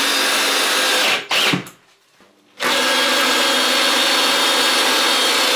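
Ryobi cordless drill driving screws into wooden blocking: one run of the motor that stops about a second in, a short pause, then a longer steady run of about three seconds.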